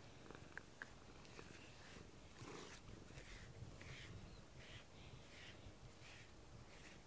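Cat purring faintly while being groomed, with the soft swish of a grooming brush through its fur repeating about every three-quarters of a second from a couple of seconds in. A few tiny clicks come near the start.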